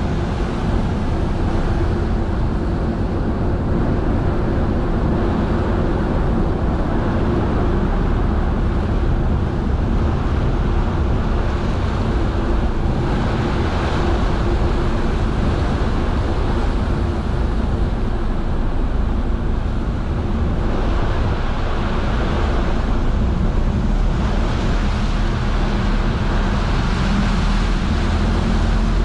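Steady low engine rumble of the sightseeing ship Wonder Naruto under way, mixed with the constant rush of its wake and the churning tidal current around the hull.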